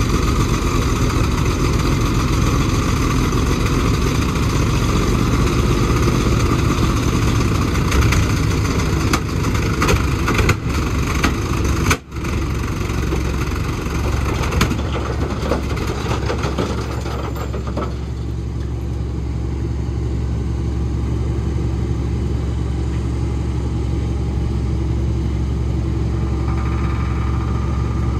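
GMC 6500 truck engine running while the flatbed dump bed is tipped up. It runs busier and noisier through the first half, then settles to a steady low idle about seventeen seconds in.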